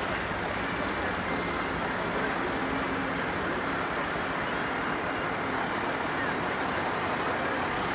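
A motor vehicle's engine running steadily at low speed, with faint voices around it.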